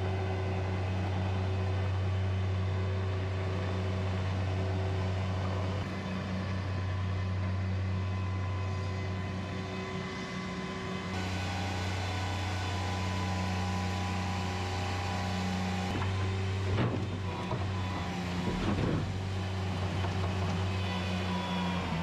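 Bobcat MT100 mini track loader's diesel engine running steadily under load while it carries and lifts a large concrete slab. Late on, a few knocks and scrapes as the slab is tipped into a dump truck bed.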